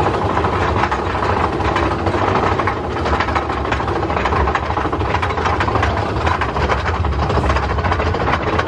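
Big Thunder Mountain Railroad mine-train coaster climbing its chain lift hill: a steady rumble of the train with a continuous clatter of clicks from the lift chain and anti-rollback ratchets.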